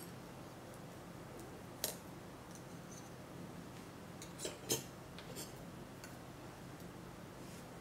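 A few light, sharp clicks of small metal tools tapping on a marble tile and wax seals: one about two seconds in, a quick pair around four and a half seconds, then a fainter one, over a low room hiss.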